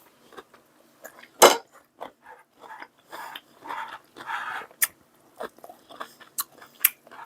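Eating at the table: utensils clicking against dishes, with a sharp clink about a second and a half in, and bouts of chewing in between.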